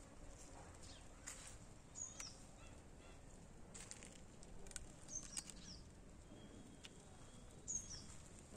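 Faint outdoor ambience with short, high, downward-sliding bird chirps, about three times, and a few scattered small clicks.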